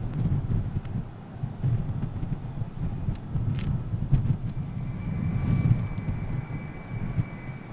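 F-35B's F135 jet engine running: an unsteady low rumble, with a steady high whine coming in about halfway through.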